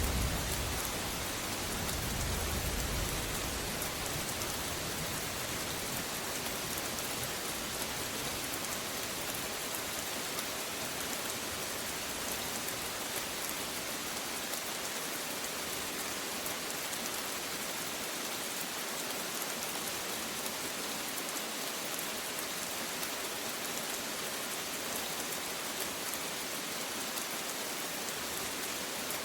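Steady rain falling, an even hiss, with a low thunder rumble dying away in the first three seconds or so.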